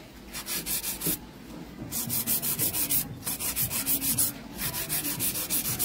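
Hand nail file scraping back and forth on a sculpted acrylic nail in quick strokes, about six a second, in four short runs with brief pauses between: the acrylic is being filed down to shape the nail's sides and take off the excess.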